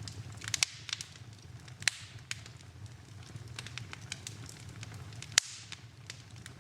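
Fire burning in a fireplace, crackling with scattered sharp pops over a low steady rumble of the flames; the loudest pop comes about five and a half seconds in.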